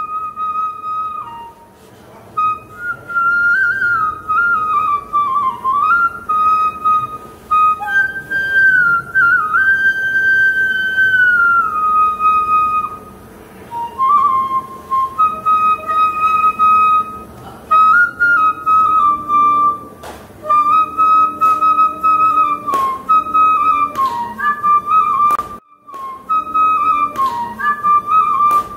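Bamboo transverse flute (bansuri) played solo: a slow melody of held notes that slide and bend between pitches, with a brief break near the end.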